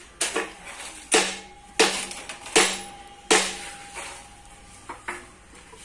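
Sharp clattering knocks on hard plastic scrap, each with a short hollow ring. Five come in a row about three-quarters of a second apart, then two lighter ones near the end.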